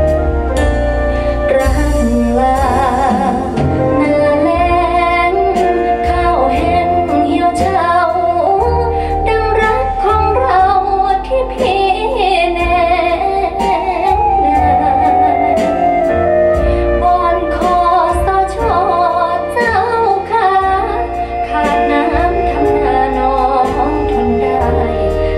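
A song with a woman singing a slow melody with vibrato over instrumental backing and bass, played back through large hi-fi loudspeakers.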